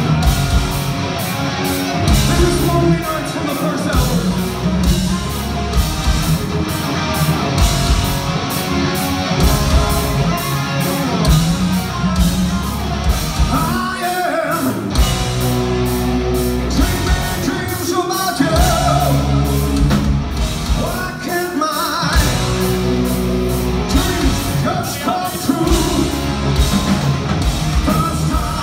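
Heavy metal band playing live: distorted electric guitars, bass and drums keeping a steady beat, with a singer's vocal lines coming in several times, heard from the audience in a large hall.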